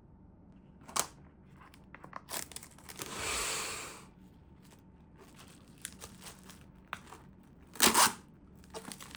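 Kitchen handling sounds, with crinkling and tearing like plastic food packaging being opened. Scattered light clicks, a longer rustle about three seconds in, and a loud double rustle near the end.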